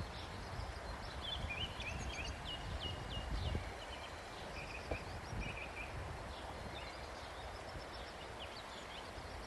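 Faint outdoor ambience: small birds chirping over a low, steady rumble, with a few soft knocks.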